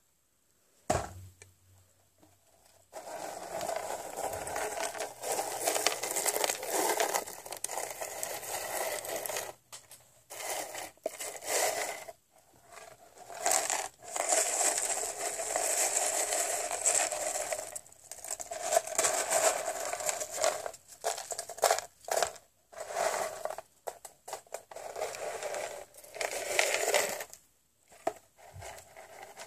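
Close, crackly crinkling and crunching of a corn snack and its wrapper, in stretches of a few seconds with short pauses between. A single knock about a second in.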